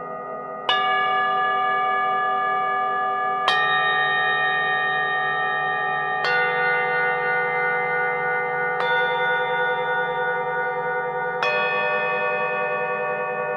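Bells struck one at a time, five strikes about every two and a half to three seconds. Each strike rings on at a different pitch and overlaps the last.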